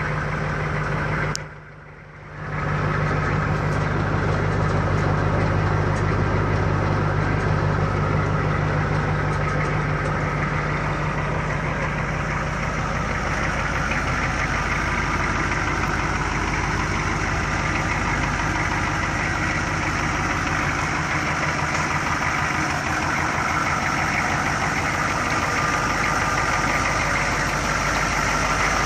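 The 6.2-litre V8 diesel of a 1986 Chevrolet K30 M1031 CUCV truck idling steadily. The sound drops away for about a second, roughly a second and a half in.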